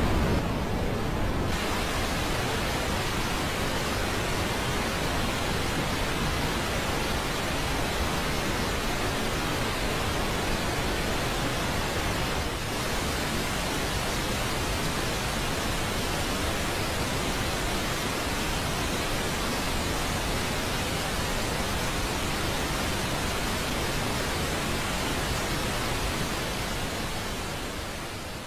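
Steady rushing noise, a dense hiss with a low rumble under it, from a simulated black-hole sound made by converting recorded space signals into audio. It fades out near the end.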